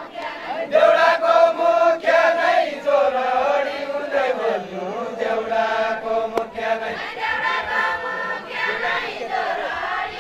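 A line of men chanting a deuda folk song together, several voices holding long sung notes that slide up and down in pitch. A single sharp click sounds about six seconds in.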